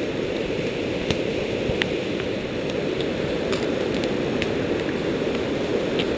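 Rushing, swollen creek: a steady wash of fast whitewater, with a few faint clicks and snaps of footsteps through dead branches.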